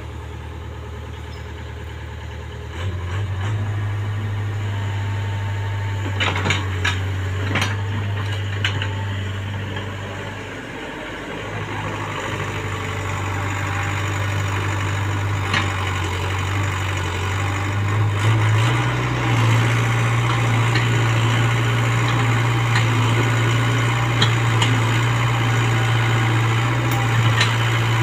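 Komatsu PC75UU mini excavator's diesel engine running, its pitch stepping up as the machine takes load about three seconds in, easing off around ten seconds and stepping up again near nineteen seconds. A few sharp knocks between about six and nine seconds.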